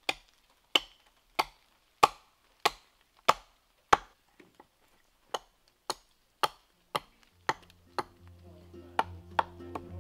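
A sharp knock repeated at a steady pace, about three every two seconds, each ringing briefly. About seven and a half seconds in, music with low sustained notes fades in beneath the knocks and grows louder.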